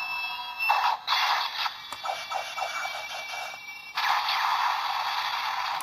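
Electronic sound effects from a Kamen Rider Gaim DX Musou Saber toy sword's small speaker, with an Ichigo lockseed fitted. A high electronic tone opens, followed by bursts of hissing slash effects. From about four seconds in comes a steady hiss lasting nearly two seconds.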